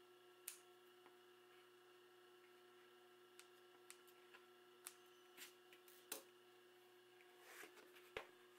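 Faint scissor snips cutting thin 1 mm insole cardboard, a dozen or so sharp clicks spread irregularly, over a steady low electrical hum. Near the end comes a short rustle of the sheet and a soft knock.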